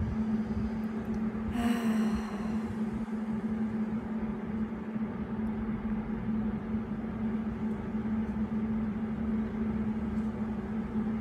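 A steady low hum at one constant pitch over a low rumble, with a brief louder sound about two seconds in.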